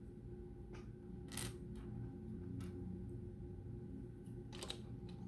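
Plastic LEGO pieces clicking as they are handled and fitted together: a few scattered sharp clicks, the loudest about a second and a half in and again near the end.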